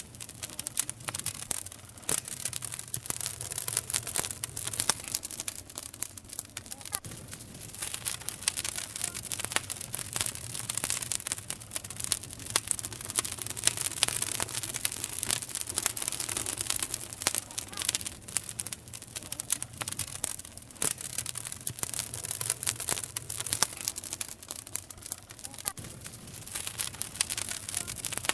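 Wood campfire crackling and popping: a dense run of sharp snaps and pops over a steady hiss.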